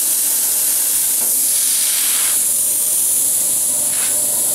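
CNC plasma cutter torch cutting 6 mm steel plate: a steady, loud high hiss of the plasma arc and air jet. About two and a half seconds in the sound thins as the arc goes out at the end of the cut, leaving the air hiss.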